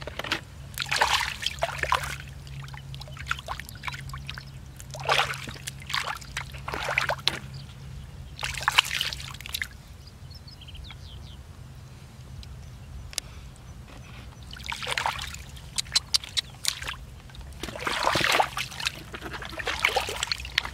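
Plastic bucket scooping and flinging water out of a shallow muddy ditch, splashing in irregular bursts a few seconds apart, with a quieter stretch of water sloshing around the hands in between.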